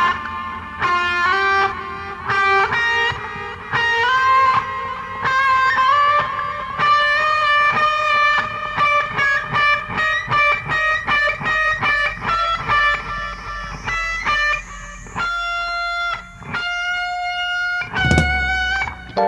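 Electric guitar playing an instrumental solo: a melody of quick single picked notes, turning near the end to a few longer held notes.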